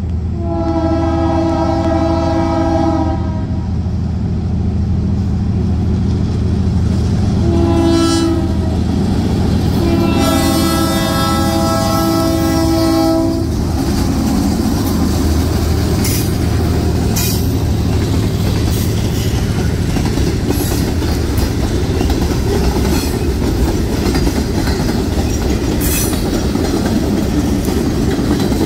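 Arconic No. 9, a diesel switcher locomotive, sounds its multi-note horn in three blasts: long, short, long. This is its warning for the road crossing, heard over the steady running of its engine. Through the second half the train rolls past, with wheels clacking over the rail joints.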